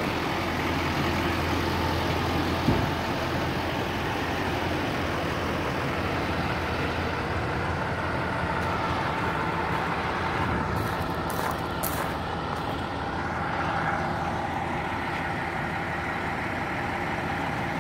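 Emergency vehicles' diesel engines idling at the scene: a steady low drone. A few brief hisses come about two-thirds of the way through.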